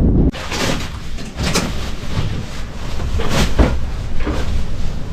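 Irregular scraping and brushing strokes on a sand- and dust-covered floor, about one or two a second, over a low rumble of wind.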